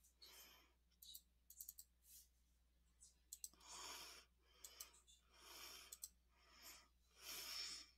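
Near silence: faint breathing close to the microphone, a soft swell every second or two, with a few light clicks in the first half.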